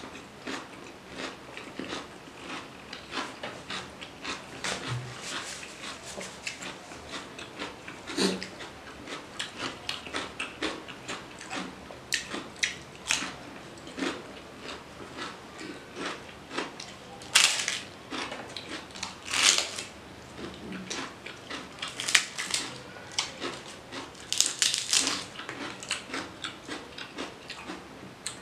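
Close-miked chewing and wet mouth sounds of a person eating rice and curry by hand: a steady run of small clicks and lip smacks, with several louder, sharper smacks in the second half.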